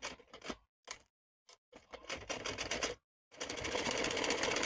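A few short clicks and handling noises, then about three seconds in a sewing machine starts up and runs steadily, stitching a seam with a fast, even rhythm.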